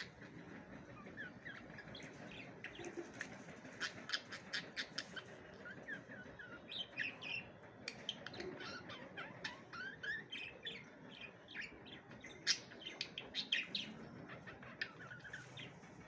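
Budgerigars warbling and chattering: a quick, uneven stream of short chirps, clicks and little whistled glides, the contented 'happy' chatter of pet budgies.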